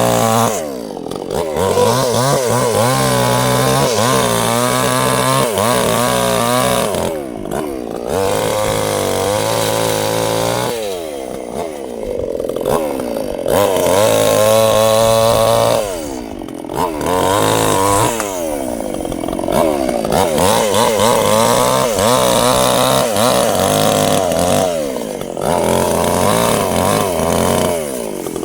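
Two-stroke chainsaw cutting sengon wood, held at high revs through each cut and dropping back briefly several times between cuts before revving up again.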